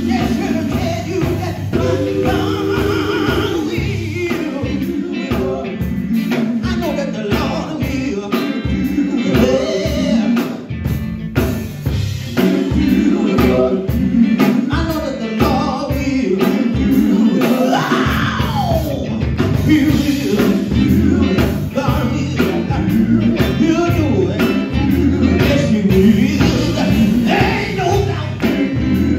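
Live gospel band playing loud through a PA: a male lead singer on a microphone over electric bass, electric guitar and drums.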